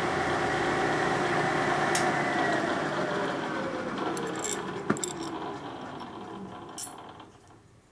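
Power tool spinning a carbide burr, cutting a countersink in a metal license plate bracket, then winding down and fading out near the end, with a couple of sharp clicks.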